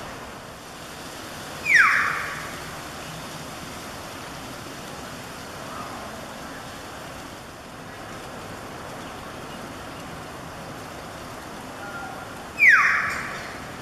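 Common hill myna giving two shrill calls about eleven seconds apart, each a quick downward-sweeping note with a short echo, over a steady background hiss.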